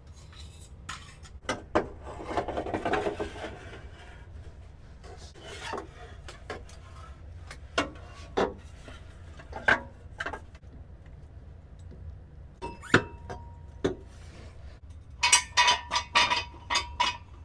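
Stainless steel exhaust downpipe being worked into place under a car, scraping and knocking against the underbody. A drawn-out scrape about two seconds in, then scattered knocks, and near the end a quick run of metallic clinks with a ringing note.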